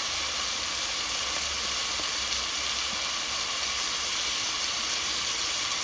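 Beef liver and onion frying in oil in a pan, sizzling with a steady hiss.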